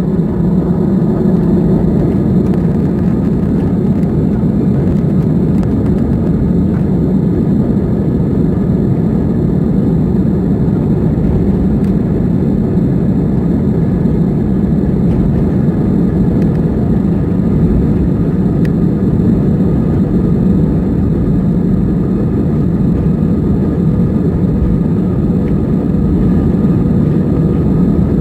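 Airbus A319 jet engines at takeoff power, heard inside the passenger cabin: a loud, steady noise strongest in the low range, with no change in pitch.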